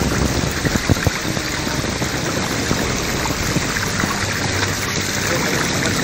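Stream water running and splashing down over rocks: a steady rush, with a few sharp knocks about a second in.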